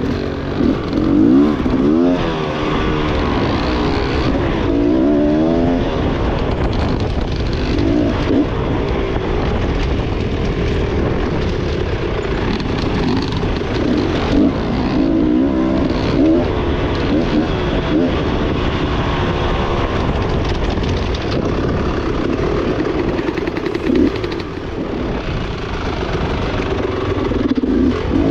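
Beta enduro dirt bike engine revving up and down again and again as it is ridden along single track, with a steady rush of wind on the microphone underneath.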